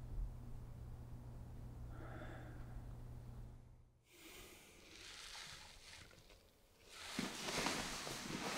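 A steady low hum, then a person breathing out heavily twice, long airy breaths, the second louder.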